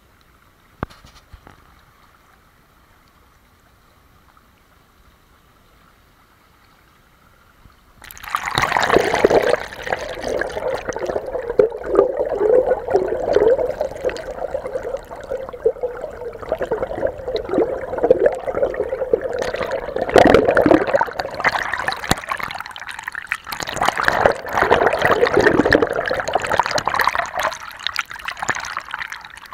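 Running water trickling and gurgling, starting abruptly about eight seconds in after a quiet stretch with a single click.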